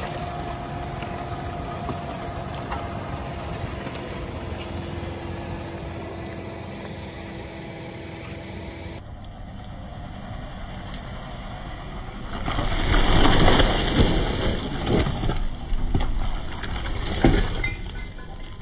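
Car engine running with a steady hum while the car's tire rolls over soft objects. About two thirds of the way in comes a louder stretch of dense crackling and crunching as the tire crushes pulpy painted fruit-like objects.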